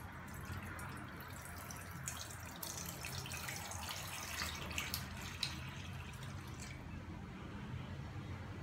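Water poured from a mug into an empty cooking pot, splashing and trickling against the bottom, with a few sharper splashes in the middle, then stopping about seven seconds in.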